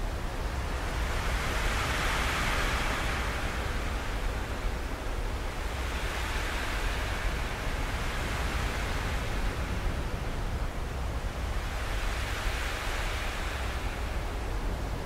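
Sea waves washing in: a steady hiss over a low rumble that swells and ebbs about every five seconds.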